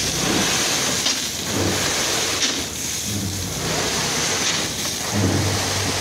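Crushed stone aggregate pouring and sliding off a raised tipper truck body in a continuous rushing, rattling stream, with the truck's engine humming underneath and swelling a few times.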